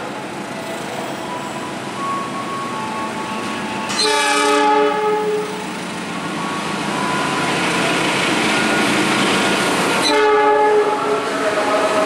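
A KAI diesel locomotive sounds its multi-note horn twice as it approaches hauling passenger coaches: a longer blast about four seconds in and a shorter one near the end. Between the blasts the engine and wheel noise grows steadily louder.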